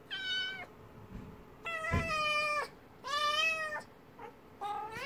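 Two-month-old kitten meowing repeatedly: four separate meows, each under a second long, about a second apart, the last starting near the end.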